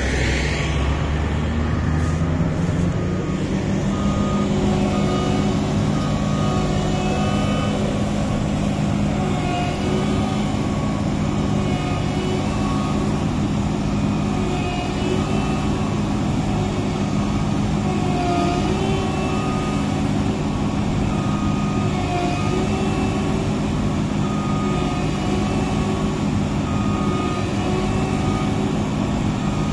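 Massey Ferguson CS6050 tracked combine harvester's diesel engine revving up over the first couple of seconds, then running steadily at high revs under load as the machine strains to climb out of deep mud. Short beeps repeat through it about once a second.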